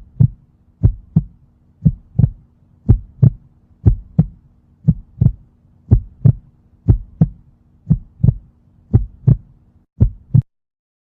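Human heartbeat, the lub-dub of the first and second heart sounds as the heart valves close. The beats come in pairs about 0.3 s apart, at about sixty a minute, and stop about ten seconds in.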